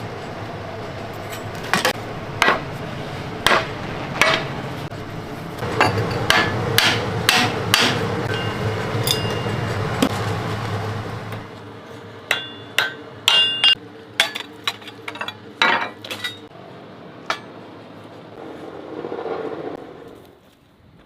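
Hand hammer striking steel in irregular blows, some of them ringing briefly after impact. A steady background rumble runs under the first half and drops away about halfway through.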